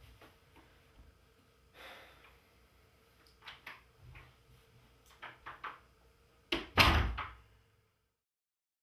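A few light knocks and clicks, then a loud double thump about six and a half seconds in. The sound then cuts to dead silence.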